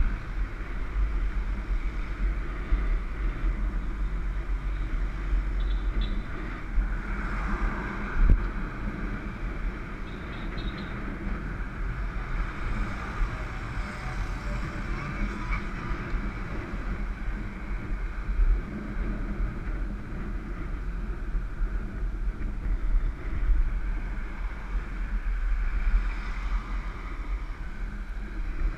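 Wind buffeting the microphone of a camera riding on a road bicycle, with a steady low road rumble and traffic passing alongside. One sharp knock about eight seconds in.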